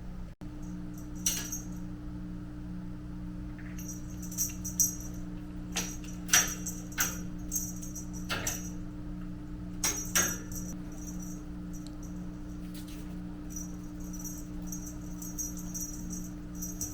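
Short, irregular bursts of light metallic jingling, over a steady low hum.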